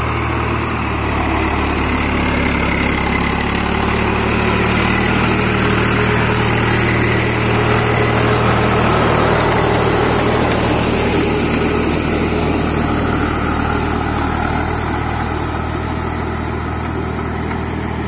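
Tractor engine running steadily under load as it drives a rotary tiller through a flooded rice field. It grows a little louder toward the middle, then eases off.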